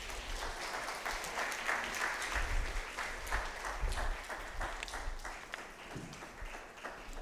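Congregation applauding. The clapping swells within the first couple of seconds, then slowly dies away.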